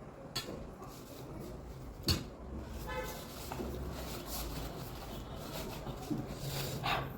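A low rumble of traffic with a short horn toot about three seconds in, and a sharp knock about two seconds in along with a few lighter clicks.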